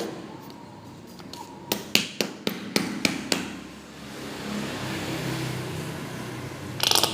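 A run of about six sharp knocks, as of a glue bottle being tapped against a container to get the last glue out, then a softer scraping noise and a brief louder clatter near the end.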